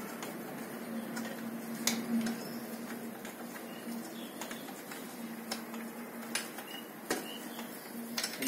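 Scattered light metallic clicks and taps from the parts of a Tata Ace Mega engine being handled during strip-down, over a faint steady hum.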